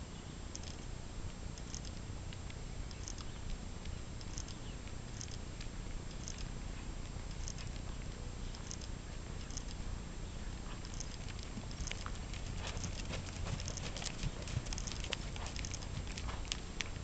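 A ridden horse moving over a sand arena: faint clicks about once a second over a steady low rumble, then a flurry of sharper clicks in the last few seconds.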